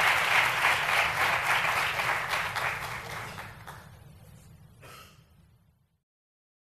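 Audience applauding in a large hall, a dense patter of many hands clapping that fades away from about three seconds in and stops about six seconds in.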